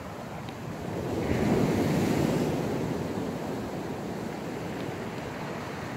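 Sea waves breaking and washing onto the beach: one surge of surf swells about a second in and then fades back to a steady wash.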